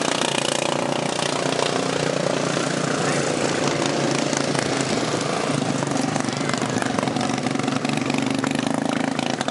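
Several junior prepared-class racing lawn mowers running around the track, their engines making a loud, steady drone.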